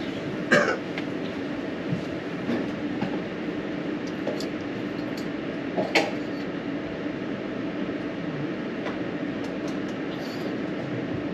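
A steady mechanical drone with a low hum, broken by a sharp knock about half a second in and another about six seconds in.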